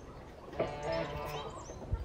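Bricks knocking as they are set down: a sharp clack about half a second in and another near the end. Under them is a drawn-out call from a farmyard animal, with short bird chirps.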